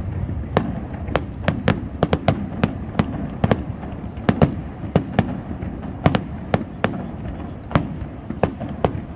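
Fireworks going off: a quick, irregular string of sharp bangs and pops, several a second.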